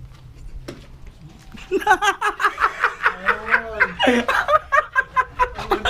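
Laughter breaking out about two seconds in, then carrying on as a long run of short, rapid hearty bursts.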